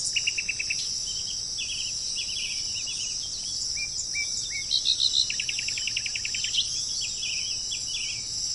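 Several songbirds chirping and trilling over a steady high-pitched chorus of insects, with a fast dry trill a little past halfway.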